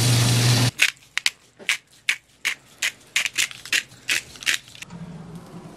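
A kitchen tap running into a stainless steel sink, cut off suddenly less than a second in. Then a string of sharp, irregular crinkles and crackles, about three or four a second for some four seconds, as aluminum foil is handled.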